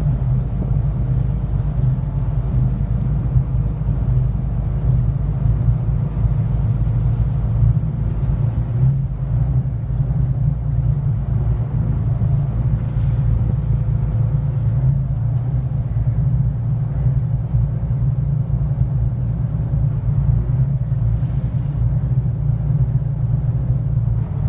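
Motor yacht's engines running under way, a steady low rumble with some wind buffeting on the microphone.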